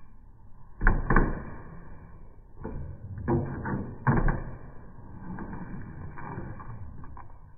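A dog's front paws knocking and scraping on a hollow plastic balance platform on concrete: a pair of loud knocks about a second in, a few smaller ones around three seconds, and another loud pair just after four seconds.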